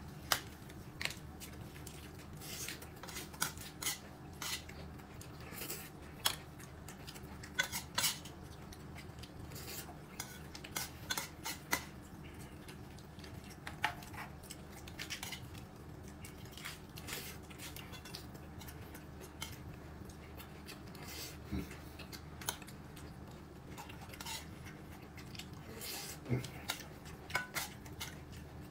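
Eating utensils clinking and tapping against bowls and plates during a meal: irregular light clicks scattered throughout.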